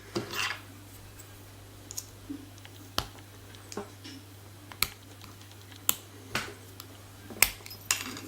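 Sharp metallic clicks and taps at irregular intervals, the louder ones coming about once a second through the second half: small tools and lock parts being handled while a Medeco biaxial lock is disassembled.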